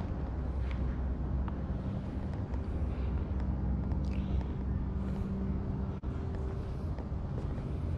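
Steady low mechanical hum of an indoor air-handling system, with a held tone that cuts off about six seconds in.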